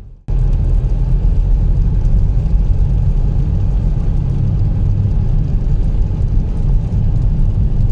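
Car driving along a road: a steady low rumble of engine and tyre noise that starts suddenly just after the beginning.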